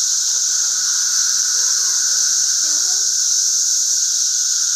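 A dense, loud chorus of periodical cicadas: one unbroken, steady drone with a strong high hiss and a lower hum beneath it.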